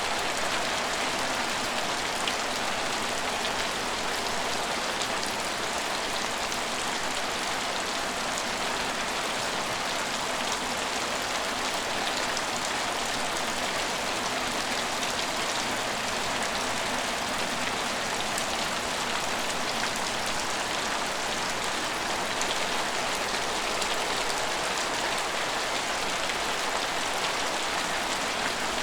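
Steady rain falling on the surfaces of an empty station, a constant even hiss with scattered small drop ticks.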